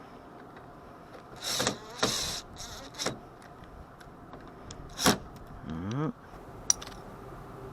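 Clunks and scrapes of parts being handled and fitted on a truck door, loudest just after five seconds, followed by a short rising whirr and a sharp click.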